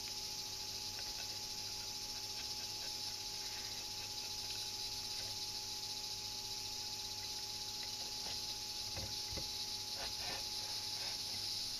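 A kitchen knife slicing a Japanese whiting into fillets on a cutting board, with a few faint soft ticks near the end. Underneath runs a steady high hiss with a low hum.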